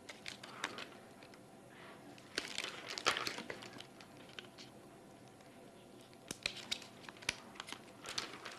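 Faint plastic handling noises: scattered clicks and crinkling as the tubing and small black block of an IV administration set are fitted into a Bodyguard 323 infusion pump. The clicks are louder in clusters about two and a half to three seconds in and again around six to seven seconds in.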